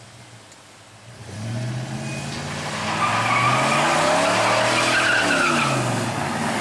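Ford F-150 Lightning pickup's engine revving hard, its pitch rising and falling several times, with tyres squealing over it from about two seconds in: the rear tyres spinning and leaving black marks on the road. The engine comes in suddenly about a second in.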